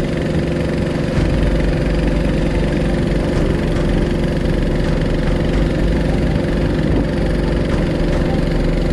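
Boat engine running steadily at idle, an even low hum that does not change.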